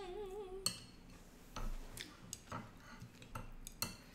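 A woman's short wavering hum while eating with her mouth full. It is followed by a handful of scattered sharp clicks and taps of chopsticks against a plate and bowls.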